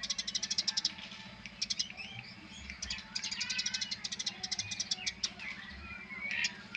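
Eurasian tree sparrows chirping busily: rapid trains of sharp, high chirps, about a dozen a second, broken by short pauses, with other sparrow calls mixed in. A steady low hum runs underneath.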